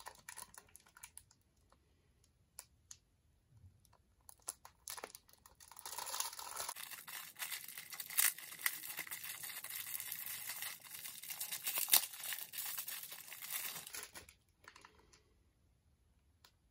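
Thin plastic bag crinkling as it is worked off a toy train. A few light crackles at first, then about seven seconds of continuous crinkling that stops a little before the end.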